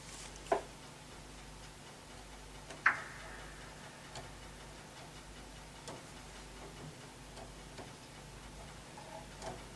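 Scattered light clicks and taps from handling grand piano damper parts, at irregular intervals, the loudest about three seconds in with a short metallic ring, over a low steady hum.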